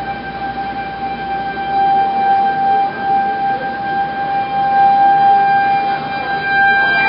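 Outdoor tornado warning siren sounding one steady held tone over a steady rushing noise, which thins out near the end while the siren carries on.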